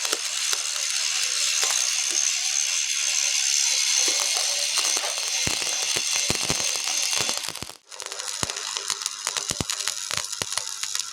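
Stick welding arc crackling and sizzling steadily with dense sharp pops. It cuts out abruptly nearly eight seconds in, then strikes again and crackles on.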